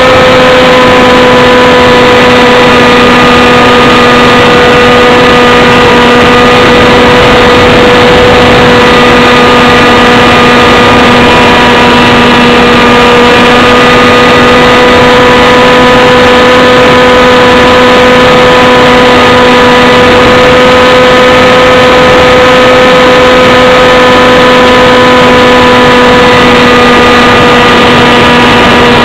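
Propeller aircraft's engine and propeller running steadily in flight, recorded onboard close to the microphone: a loud, constant drone holding one pitch.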